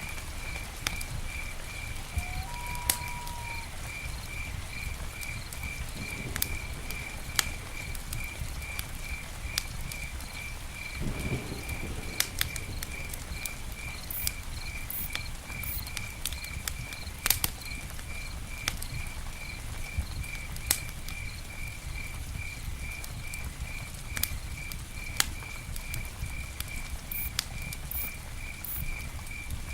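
Campfire burning, with scattered sharp crackles and pops over a low rumble. A steady high chirp repeats about twice a second, and a short whistle comes about three seconds in.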